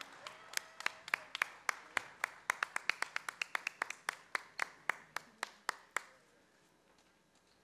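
One person clapping hands: sharp, separate claps at about five a second, stopping about six seconds in.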